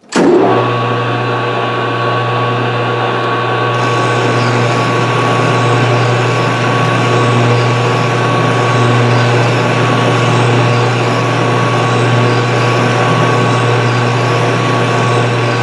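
Colchester gear-head lathe running under power with the half nuts engaged, taking a threading pass on a tailstock casting: a steady, loud gear hum with a thin high whine over it. It starts suddenly as the lathe is put in gear and drops away right at the end as the pass stops.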